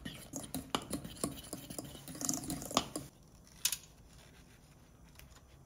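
Kitchen work: a quick run of light clicks and taps from utensils and dishes being handled, which stops about three seconds in, followed by one more click a little later.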